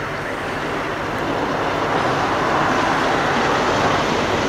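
BC Rail diesel-electric freight locomotive approaching at the head of a double-stack container train, its engine and wheel noise growing steadily louder.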